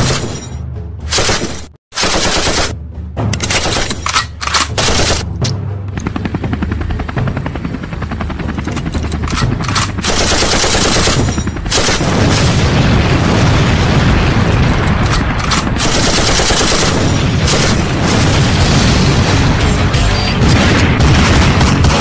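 Film sound effects of automatic gunfire with explosions, over background action music. Short bursts come first, with a brief dead stop about two seconds in, then near-continuous rapid fire from about six seconds on.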